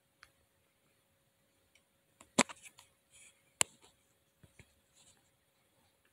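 A few sharp clicks and knocks, the two loudest about a second apart near the middle, with smaller ticks around them over a faint steady hum.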